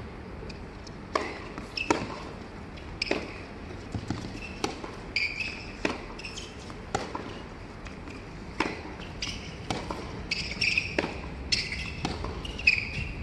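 Tennis rally on an indoor hard court: racket strikes and ball bounces as sharp knocks, about one every half-second to second, mixed with short high squeaks of sneakers on the court that come more often in the second half.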